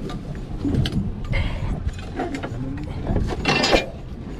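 Scattered clicks and knocks of fishing rod and tackle being handled on a boat deck, over a steady low rumble.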